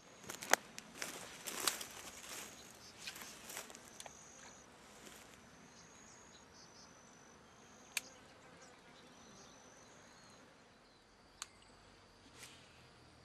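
Outdoor ambience with insects calling in short, high-pitched bursts. A cluster of sharp clicks and rustles comes in the first four seconds, and single clicks follow about eight and eleven seconds in.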